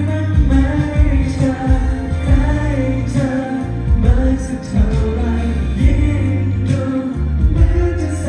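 Amplified pop song with singing over a band backing, with heavy bass and regular drum hits.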